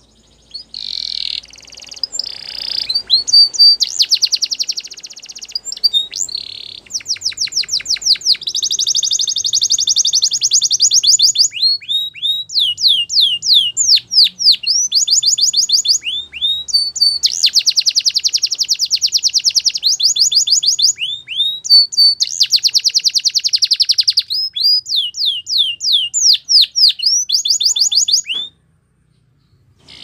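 Domestic canary singing a long song of rapid rolling trills alternating with slower runs of downward-sliding notes, which stops abruptly near the end.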